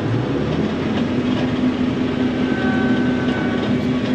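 John Deere self-propelled swather driving down the road, its engine running steadily with a low hum and a faint whine over the rumble of the machine.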